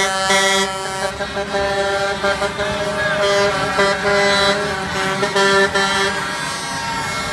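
Truck air horn sounding almost without a break, several steady notes at once, over the engine noise of passing concrete mixer trucks.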